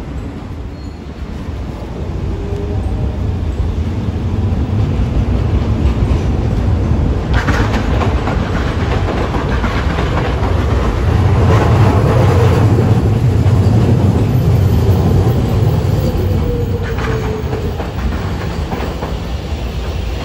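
Hiroshima Electric Railway streetcars running on street track: a low wheel-and-motor rumble builds as a 3800-series articulated tram rolls in close and is loudest as it passes, then eases off. The wheels clack over rail joints about a third of the way in and again near the end.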